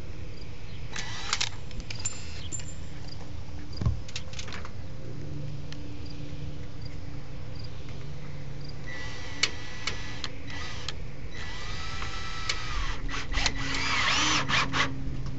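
Power drill driving screws through aluminum fascia in several short bursts, with a steady low hum underneath.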